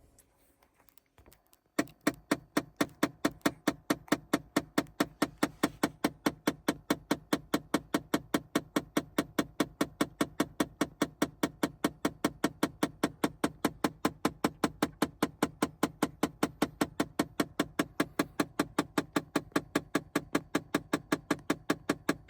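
Little bumping noise from behind the dashboard of a 2009 Chevrolet Impala LT with the engine off: an even run of quick knocks, about four or five a second, starting about two seconds in. The owner takes it for an actuator door in the heating/AC system.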